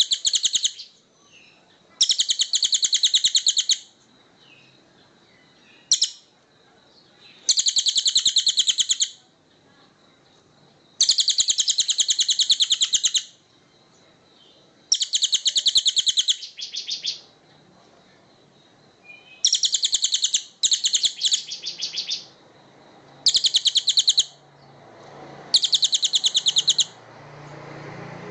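A songbird's rapid, buzzy rattling trill, given in repeated bursts of one to two seconds every few seconds; some bursts break up into shorter stutters.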